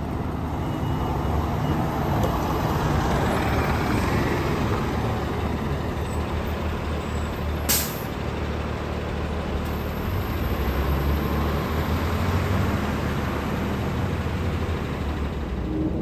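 Diesel transit buses idling and moving at a bus bay, among them a New Flyer D40LFR with a Cummins ISL engine, a steady low rumble. A brief sharp hiss of air, as from an air-brake release, comes about eight seconds in.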